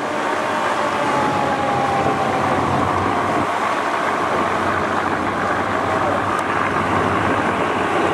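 Steady rush of churning water and engine noise from large river passenger launches, among them the M.V. Prince Sakin, running side by side at speed. A fainter long tone slowly drops in pitch through the first few seconds and fades out.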